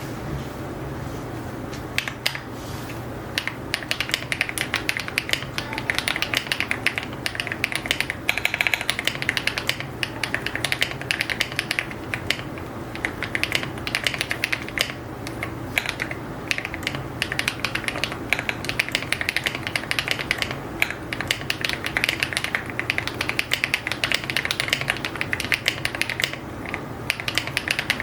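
Fast, continuous typing on an EPOMAKER x AULA F75 mechanical keyboard with HMX Latte linear switches and copper metal keycaps, many keystrokes a second with occasional louder strikes, after a near-pause in the first two seconds. A steady low hum runs underneath.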